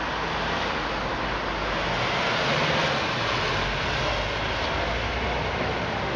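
Steady road traffic noise, swelling as a vehicle passes about two to three seconds in.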